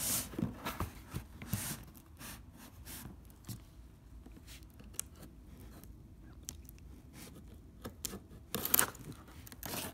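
Tape seal on a cardboard box being cut and pulled open: scattered scraping and tearing sounds, busiest in the first couple of seconds and again near the end, with quieter handling in between.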